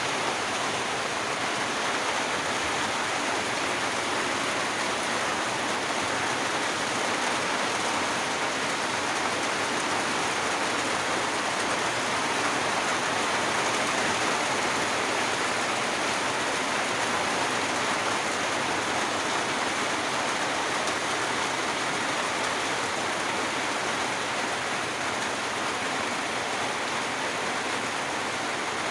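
Steady rain falling in a forest, an even, unbroken hiss.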